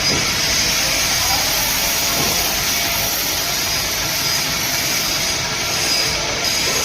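A lathe running steadily, a continuous mechanical noise with a strong hiss.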